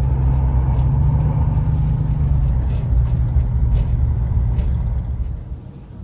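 Road and engine noise inside a moving vehicle's cabin: a steady low rumble that drops to a quieter hum about five seconds in.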